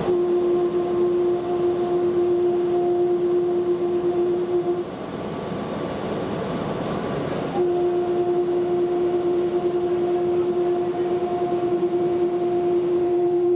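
Horn of the IR WRB-1 diesel railbus as it pulls out: a long steady blast of one pitch lasting about five seconds, then, after a pause of about three seconds, a second long blast. Underneath runs the even noise of the moving railbus.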